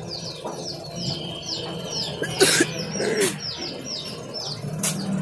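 Birds chirping rapidly, a steady run of short falling chirps several times a second, with a short hiss of compressed air from an air blow gun about two and a half seconds in, blowing dust off a carved wooden door before glazing.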